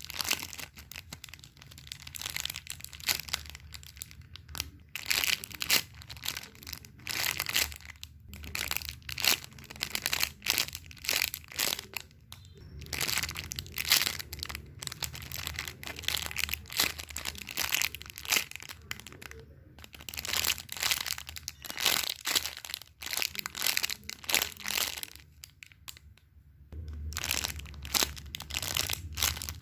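Close-up crinkling and crunching, like something being squeezed and crumpled by hand, in quick irregular bursts with a few short pauses.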